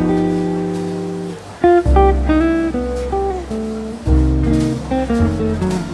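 Background music: an acoustic guitar playing plucked notes and chords over sustained low notes.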